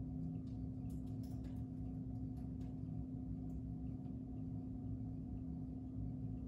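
Quiet room tone: a steady low hum, with a few faint clicks about a second in.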